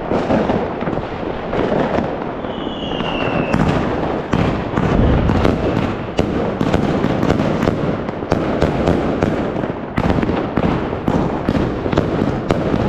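Fireworks going off in a dense, continuous barrage of bangs and crackling pops, with a short falling whistle about three seconds in.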